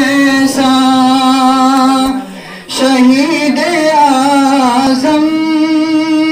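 A man's high singing voice into a microphone, holding long wordless notes: the sung opening of a manqabat. The note breaks off briefly about two seconds in, returns as a wavering, ornamented phrase, and settles into a long held note again.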